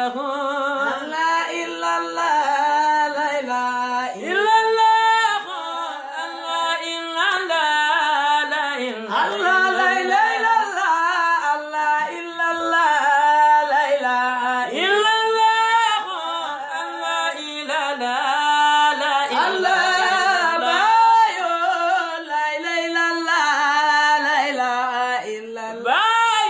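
A man and a woman singing an unaccompanied religious song in praise of Allah, with long held, ornamented notes and no instruments.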